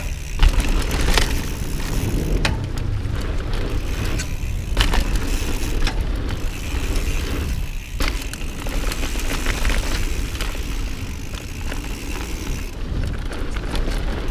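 Mountain bike ridden fast down a dirt jump trail: tyres rolling on dirt and the bike rattling, with heavy wind buffeting the microphone. Sharp knocks come a few times as the bike lands off jumps.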